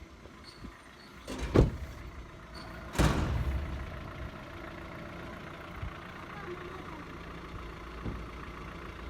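Two loud thumps, about a second and a half apart, then the Hyundai Solaris 1.6 four-cylinder petrol engine idling steadily.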